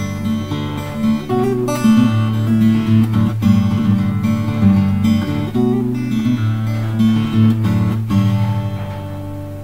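Background music of acoustic guitar, strummed and picked, with a chord left ringing and fading near the end.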